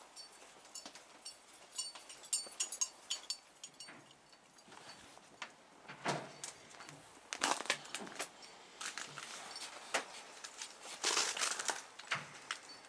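Irregular crunching with scattered clicks and crackles, as of footsteps in snow. The loudest crunches come about six seconds in, again near eight seconds, and around eleven seconds.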